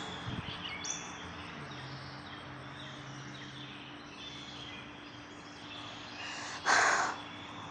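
Quiet woodland ambience: a faint steady hiss with scattered faint bird chirps, and one brief rustle a little before the end.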